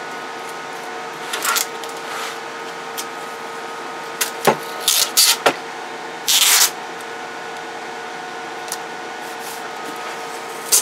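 A CB radio being handled and moved on a workbench: a few short knocks, clicks and brief rustling scrapes over a steady background hum with faint steady tones.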